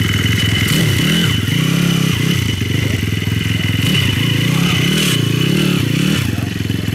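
Engine of a hand-built small motorcycle running, revved up and down several times, then settling back to idle near the end.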